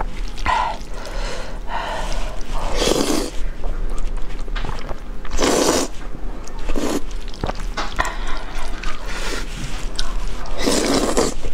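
Slurping saucy fire chicken (Buldak) instant noodles off chopsticks: three loud slurps a few seconds apart, with quieter mouth sounds between.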